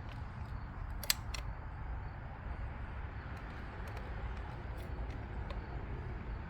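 Two sharp clicks about a quarter of a second apart, roughly a second in, with a few faint ticks, over a steady low background rumble.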